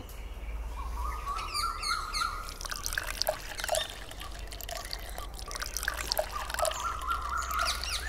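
Dish-washing sound effect: water trickling and dripping from a running tap, with many small scattered drips and bubbly plops.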